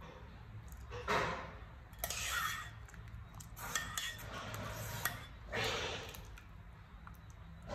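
Small wire-mesh strainer scooping boiled fusilli out of a pot of water: water splashing and draining back through the mesh in about four bursts, with light metal clinks against the pot.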